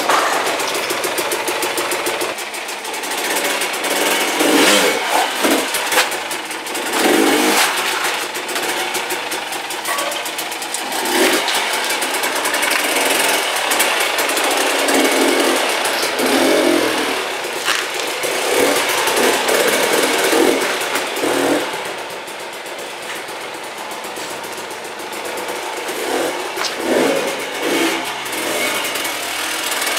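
Two-stroke dirt bike engine being ridden, revving up in repeated swells and easing off between them, running quieter for a few seconds past the middle.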